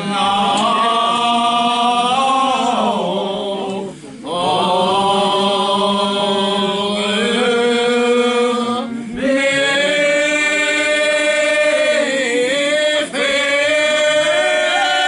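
Gospel singing in long held notes, with brief pauses for breath about four and nine seconds in.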